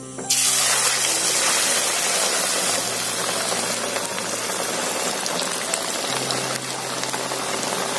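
Battered shawarma bread deep-frying in hot oil in a kadai: a loud, steady sizzle that starts suddenly just after the beginning, with a faint steady hum underneath.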